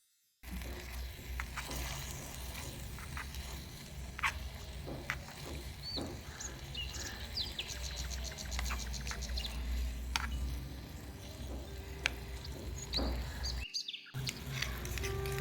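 Birds chirping: scattered short calls with a quick run of chirps about halfway through, over a steady low rumble.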